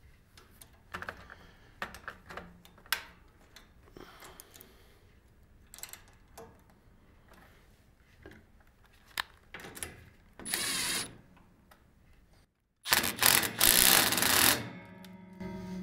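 Metal clicks and clinks of a wrench on a bolt of a steel antenna mount. Then a cordless drill runs, briefly about ten seconds in and longer and louder near the end, driving in the fastener for a wire grounding strap.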